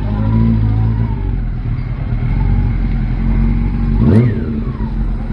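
CFMoto 650 parallel-twin motorcycle engine idling steadily. About four seconds in, a single quick throttle blip makes the pitch rise sharply and then fall back to idle.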